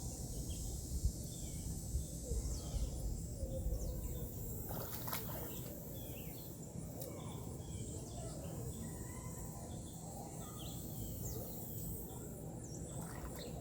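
Quiet outdoor ambience: a steady low rumble with faint bird chirps scattered throughout and a few soft clicks.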